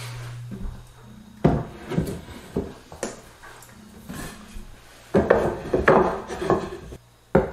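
Ripped 2x4 wood strips knocking and scraping as they are set down and slid into place against the edge of a birch butcher-block slab on a tile floor. A few sharp knocks come about a second and a half in, then a busier run of knocks and rubbing after about five seconds.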